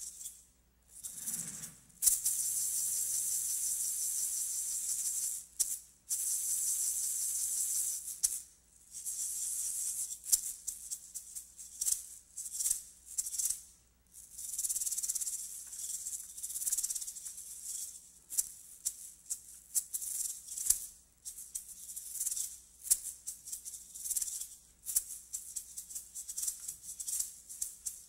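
Maracas played solo: two long, continuous shaking rolls at first, then quick, uneven rhythmic shakes with sharp accents.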